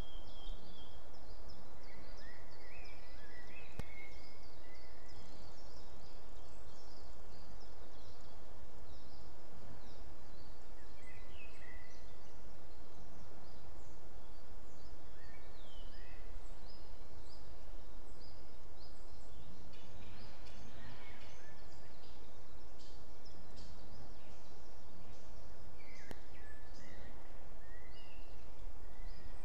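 Forest birdsong: several small wild birds singing and calling in short chirps and brief phrases, scattered and overlapping, over a steady low rumble.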